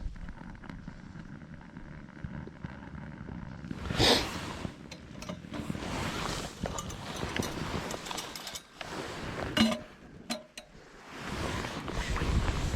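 Wind rumbling on the microphone, with a loud gust-like rush about four seconds in and a run of sharp clicks and knocks of gear being handled.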